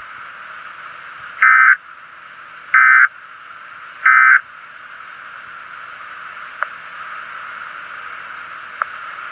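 Weather radio emergency alert data tones (SAME/EAS): three short buzzing bursts about a second apart over the receiver's steady static hiss, the pattern of an end-of-message code. Two faint clicks come later.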